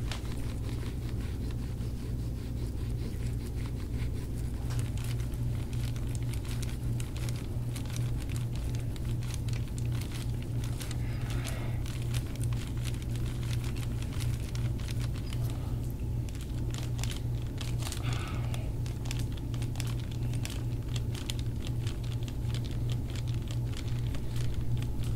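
Forearm and hands sliding and pressing over oiled skin during deep-tissue massage of the upper back, giving a scattered run of faint crackles and crinkles over a steady low hum.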